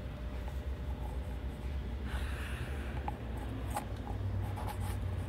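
Scraping, rubbing and a few sharp clicks of handling noise as the handheld camera is moved about, over a low steady street rumble. A car goes by about two seconds in.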